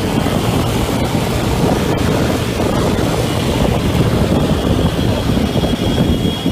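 Moving-traffic noise heard from a vehicle riding in city traffic: steady engine and road rumble with wind buffeting the microphone. A faint high whine comes in about two thirds of the way through.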